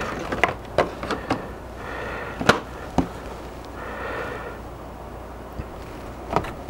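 Light plastic clicks and taps from handling an HO-scale model flatcar, a few scattered through with the sharpest about two and a half seconds in. Two soft breaths are picked up close to the microphone, about two and four seconds in.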